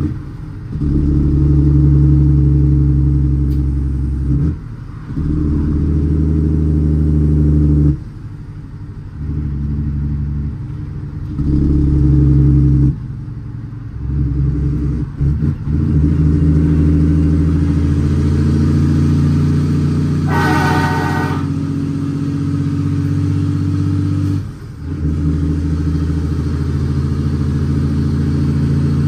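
Cummins ISX 525 hp diesel in an International ProStar dump truck loaded with gravel, heard from inside the cab, pulling through the gears of its 18-speed transmission: the engine note drops away briefly at each shift, several times, and comes back in. A horn sounds for under a second about twenty seconds in.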